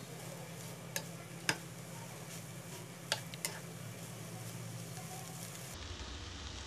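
Chicken and vegetable stuffing sizzling in a frying pan as a spatula stirs it, with a few sharp clicks of the spatula striking the pan.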